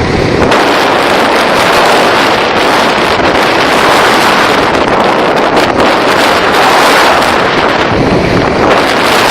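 Loud, steady rushing of strong storm wind buffeting the microphone.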